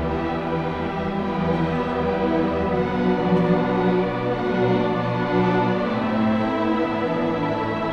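Student orchestra playing, with sustained notes and chords that change about every second.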